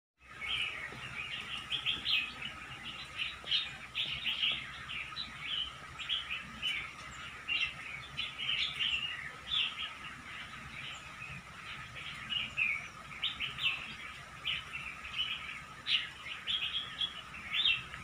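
Songbirds chirping and twittering continuously in quick, overlapping high notes, with a steady thin tone beneath.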